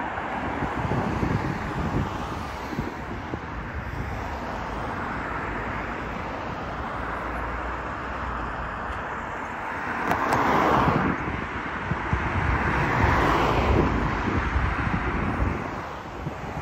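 Road traffic: cars passing one after another, the tyre and engine noise swelling and fading as each goes by, loudest twice about two-thirds of the way through, with wind rumbling on the microphone.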